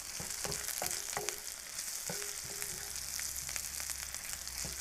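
Sliced onion sizzling in oil in a frying pan, stirred and scraped with a wooden spatula, giving a steady hiss with irregular knocks and scrapes.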